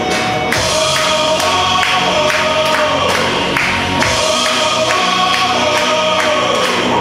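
Music with choir-like singing over a steady beat of about two strikes a second.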